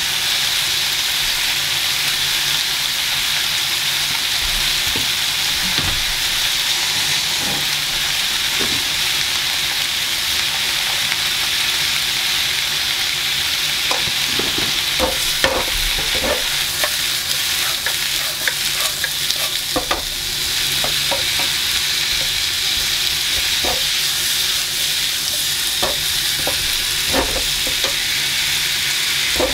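Vegetables stir-frying in a nonstick pan: a steady sizzle. From about halfway through, a wooden spatula taps and scrapes against the pan at irregular moments as the vegetables are stirred.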